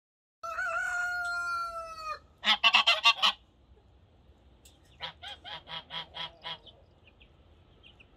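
Geese calling: a long, drawn-out wavering call, then a loud quick run of about six honks, and a few seconds later a quieter run of about seven honks.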